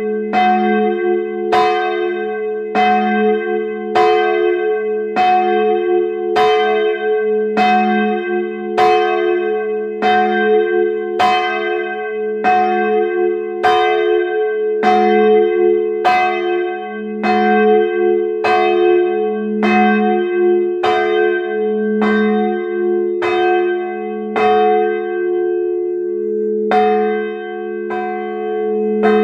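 The parish church's medium-small bell swings and rings, heard up close from inside the belfry. Its clapper strikes about once a second over the bell's steady lingering hum. One stroke is skipped near the end.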